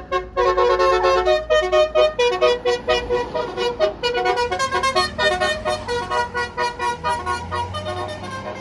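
Bus telolet horn (Basuri multi-note horn) playing a fast melody of short notes over the low running of a bus engine. The horn grows quieter over the last few seconds.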